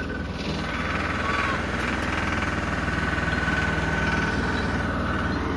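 Tractor diesel engine running steadily with a rapid, even firing beat and a steady high whine over it.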